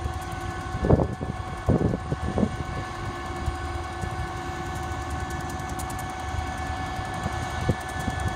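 S class diesel freight locomotive pulling away with an empty bauxite train, its engine running with a steady whine over a low rumble. A few short low thumps sound about one to two and a half seconds in.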